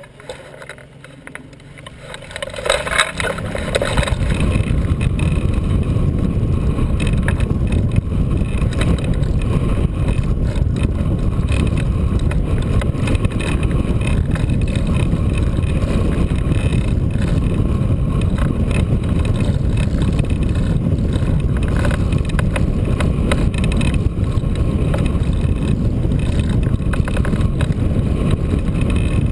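Wind buffeting the glider-mounted camera's microphone in a strong crosswind as the hang glider is towed up and climbs; it builds quickly about two to four seconds in, then stays loud and steady.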